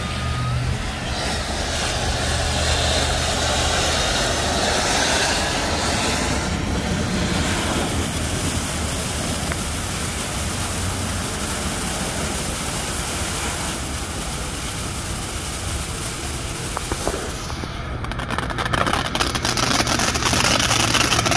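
Top Gun Fireworks 'Flush It!' fountain burning: the steady hiss of its spark jet. About eighteen seconds in, the hiss thins and gives way to a dense run of sharp crackles.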